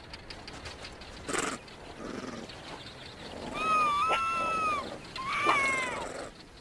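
Cape fox calling: two drawn-out, high, slightly wavering calls about a second long each, the second a little shorter. A brief scratchy noise comes about a second in.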